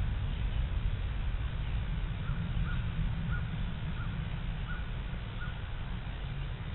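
A bird calling in a run of about six short, evenly spaced calls, beginning about two seconds in, over a steady low rumble.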